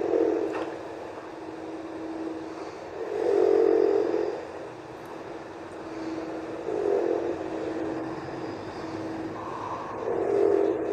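A sleeping person snoring: four snores about three and a half seconds apart, each swelling and fading, over a steady low hum.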